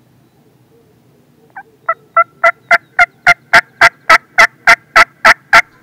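Hen turkey yelps blown on a mouth diaphragm turkey call: a long, evenly paced run of about fifteen yelps, a few each second, building in loudness over the first few notes.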